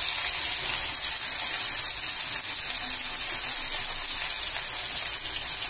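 Sliced onions and nigella seeds sizzling in hot mustard oil in a kadai: a steady frying hiss.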